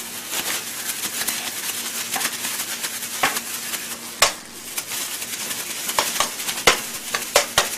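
Pork and kimchi sizzling in a pan on a portable gas burner, with a utensil clicking and scraping against the pan as the food is stirred, a handful of sharp knocks, the loudest about four seconds in.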